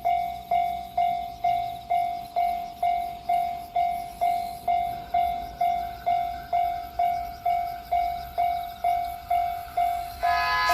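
Japanese level-crossing warning bell ringing at about two strikes a second, each strike a single clear tone that fades before the next. Near the end the approaching JR Kyushu 883-series Sonic express train's noise swells in.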